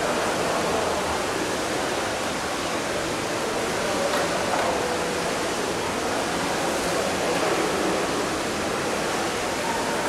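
Steady rushing water noise, heard through an underwater camera in a swimming pool. It is an even hiss with no distinct events.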